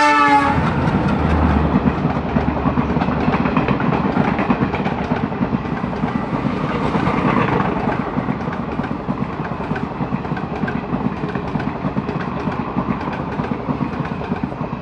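The last of a diesel locomotive's horn cuts off about half a second in. Then the Garib Rath express runs past close by: the locomotive's engine, then a long rake of coaches rushing by with rapid wheel clatter over the rail joints, easing slightly toward the end.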